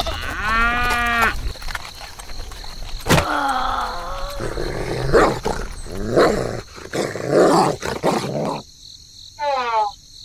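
Animal sound effects: a wavering bleat about half a second in, then a series of dog barks and growls. Near the end comes a short run of falling whistle-like glides.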